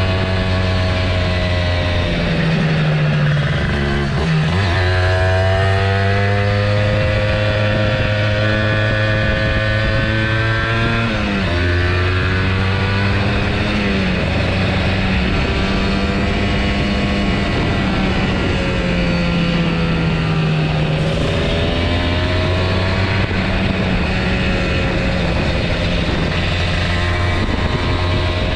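Kawasaki Ninja motorcycle engine running under way, its pitch climbing steadily and then dropping sharply and climbing again several times, over a steady rush of wind noise.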